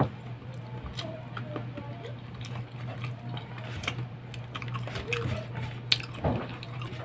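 Close-up eating sounds of a man eating rice and stewed meat by hand: wet chewing, smacks and scattered clicks, over a steady low hum.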